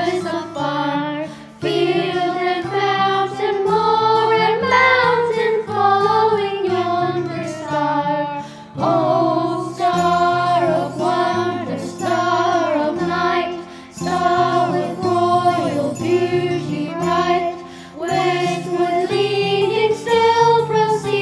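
A song with voices singing a melody over an instrumental accompaniment with a stepping bass line, the singing pausing briefly between phrases.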